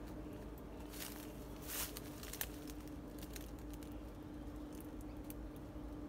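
Soft rustling and scattered light ticks from moving through dry undergrowth and leaf litter, with two brief swishes early on, over a faint steady low hum.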